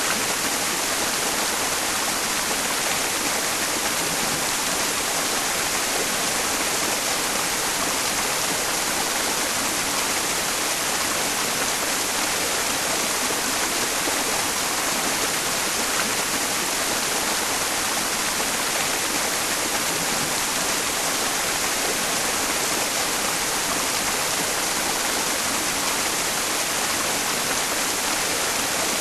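Mountain stream flowing, blended with a steady white-noise hiss that is strongest in the upper range. The mix is a tinnitus-masking sleep sound.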